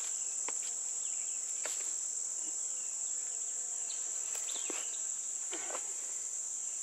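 Steady high-pitched drone of an insect chorus, with a few light clicks and rattles of a steel-cable hog snare being cinched and handled.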